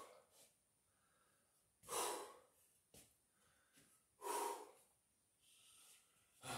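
A man breathing hard while he recovers between exercise sets: two long, audible exhales about two seconds apart, then a fainter breath near the end.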